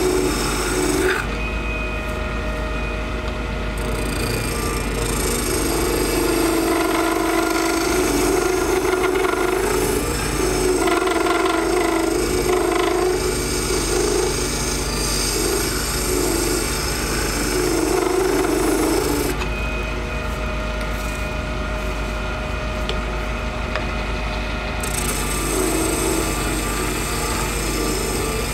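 Small benchtop lathe running while a hand turning chisel cuts a spinning cast acrylic resin blank. The cutting noise swells and eases every few seconds as the tool is worked along the piece.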